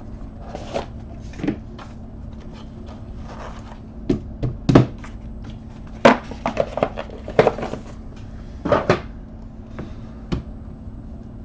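Cardboard trading-card box and its insert being opened and handled: irregular clicks, scrapes and knocks against hands and the table, the loudest about halfway through, over a faint steady hum.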